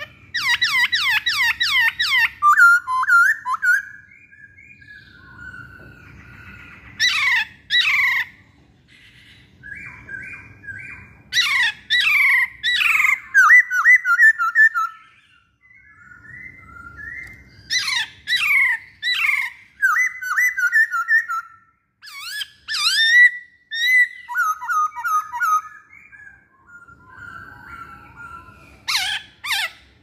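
Masked laughingthrush singing in bouts: loud runs of rapid, sharply falling whistled notes, with softer chattering notes between the runs and short pauses.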